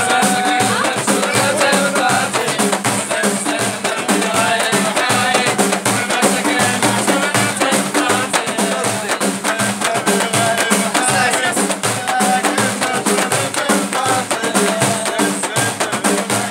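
Ahidous music: large Amazigh frame drums (allun) beaten in a steady rhythm, with jingling, under men's voices singing.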